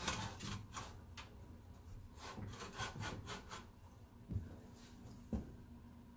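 Metal parts scraping, rubbing and clinking as a small engine is worked back onto its minibike mount with its bolts and washers, with two sharper knocks near the end.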